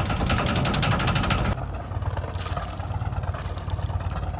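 Sailboat's inboard engine, just started from its push-button panel, running with a rapid, even clatter. About a second and a half in, the sound changes abruptly to a steadier, duller low engine drone without the clatter.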